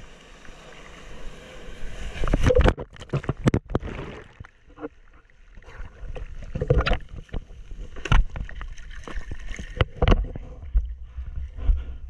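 Breaking-wave whitewater rushing and splashing around a board-level action camera, with sharp splashes and knocks as water hits the camera. The rush builds over the first couple of seconds, dips briefly near the middle, then more single splashes follow.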